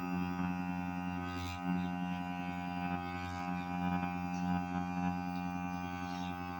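Aprilla AHC 5050 rechargeable electric shaver's motor buzzing steadily, a low even drone that holds its pitch throughout.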